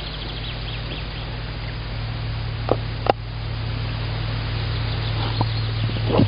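Steady low hum and hiss from a tawny owl nest-box microphone, broken by two short knocks about three seconds in and a few faint scrapes near the end, the sounds of the brooding owl shifting in the box.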